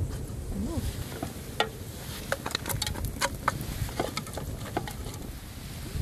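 A spoon scraping and clinking against metal cookware as leftover rice is tipped into the stew: irregular sharp clicks and scrapes over a steady low rumble.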